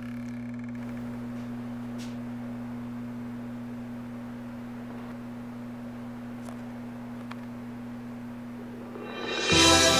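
Steady low hum of two pure tones an octave apart. About nine seconds in, music swells in and becomes much louder.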